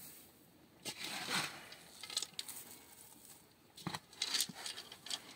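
A hand scooping through dry bran and feed pellets in a metal basin, making grainy rustling scrapes in a few bursts, the loudest about a second in and again near four seconds.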